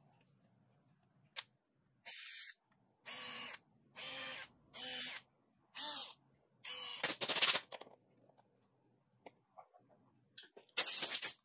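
A cordless drill driving small screws: a series of short whirring runs, each about half a second, with pauses between. Near the middle comes a longer, louder run with rapid clicking, and another loud run comes near the end.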